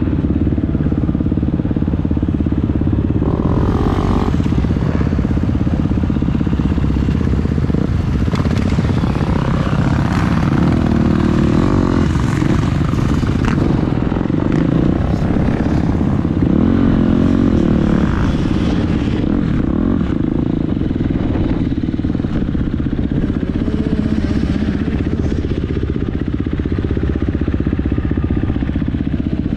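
Motocross dirt bike engine running steadily under a rider at low speed, heard from a helmet-mounted camera, with changes in pitch as the throttle opens and closes.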